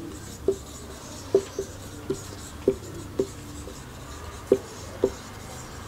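Marker pen writing on a whiteboard: about eight short, irregular strokes, each a brief tap or squeak of the tip on the board.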